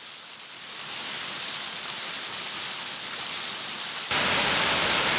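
Waterfall, rushing water making a steady hiss that swells slightly about a second in and turns abruptly louder about four seconds in.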